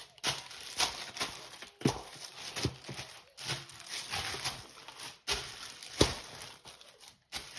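Plastic shipping packages being handled: rustling and crinkling, broken by about nine irregular knocks and bumps.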